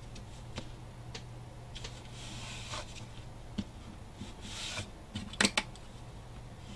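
Fingers rubbing and pressing masking tape down along the edge of a joint of cardboard: light ticks and two brushing strokes, then a couple of sharp clicks about five and a half seconds in.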